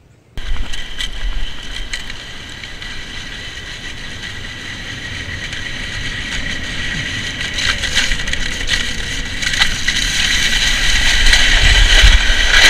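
Steel runners of a Flexible Flyer sled scraping over an icy road. The scraping starts suddenly, with scattered clicks and knocks, and grows louder as the sled picks up speed.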